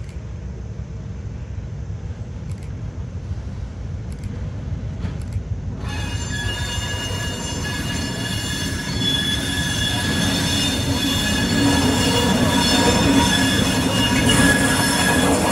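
Small diesel switcher locomotive running closer with a low rumble that builds steadily; about six seconds in, its wheels start a shrill steady squeal with several high tones that stays loud as the engine passes.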